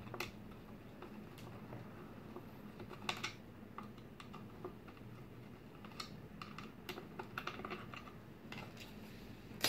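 Irregular light clicks and taps of hands handling the plastic extruder parts and wiring of a Prusa i3 MK2 3D printer, over a faint steady low hum.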